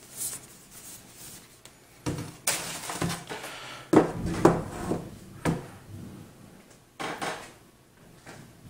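Handling noise of a laptop on a wooden desk: irregular knocks, thumps and rustles as it is moved, opened and set down, with the loudest knocks about four seconds in.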